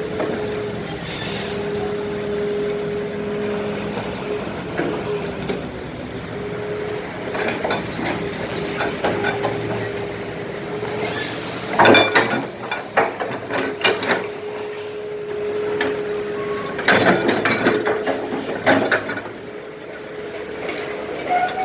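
Excavator working: engine and hydraulics running with a steady whine that breaks off now and then, and bursts of clattering as broken concrete is dug and dropped, loudest about halfway through and again a few seconds later.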